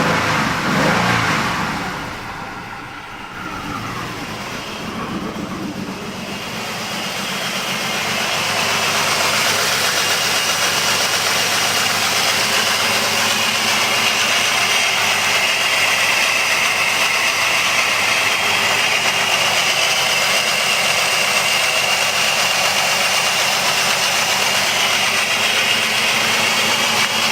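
2005 Jeep Liberty engine running at a rough idle. It is louder for the first couple of seconds, drops back about two seconds in, then builds to a steady running sound.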